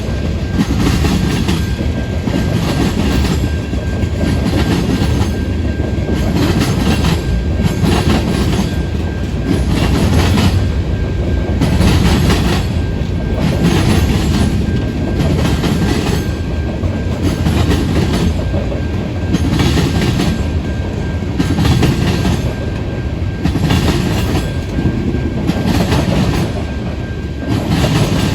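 Freight cars of a passing manifest train rolling by, wheels clacking over rail joints in a steady repeating rhythm over a continuous low rumble.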